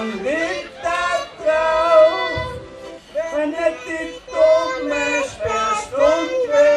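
Voices singing a song, with long held notes and gliding pitch.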